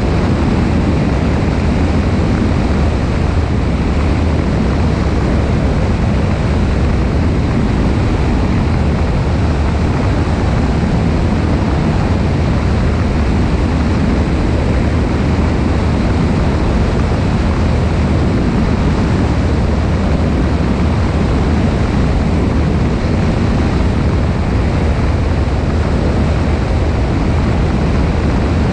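Cessna 172 in flight: a steady engine and propeller drone under rushing airflow, heard from a camera mounted on the wing.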